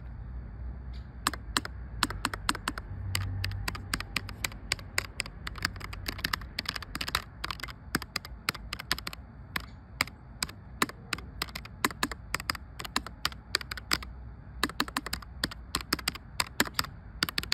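Keychron K3 Pro low-profile mechanical keyboard being typed on. Its Gateron low-profile red switches give a fast, irregular run of keystroke clicks, starting about a second in.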